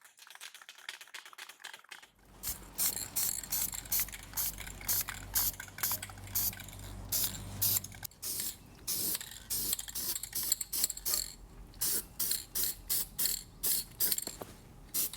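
A welder laying a quick series of short tack welds on steel tubing: some thirty brief crackling bursts at an uneven pace, starting about two seconds in, with a low hum under the first half.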